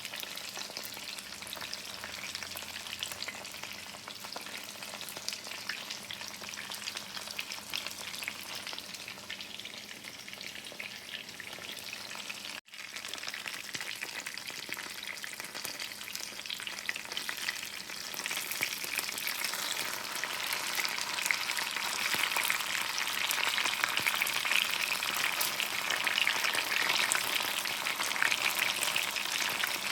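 Food frying in a pan, a steady crackling sizzle that grows louder about two-thirds of the way through. It drops out for an instant about halfway through.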